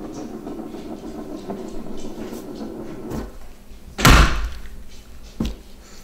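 Eggs spinning on a wooden tabletop with a low, steady rolling rumble. About four seconds in comes a sharp, loud thump on the table, then a lighter knock near the end, as an egg is knocked against the wood and breaks.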